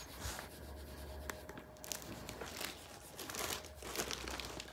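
Irregular rustling and crinkling of something being handled, with a few sharp clicks.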